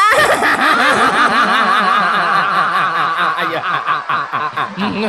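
Audience laughing loudly, many voices overlapping in continuous laughter, easing slightly near the end.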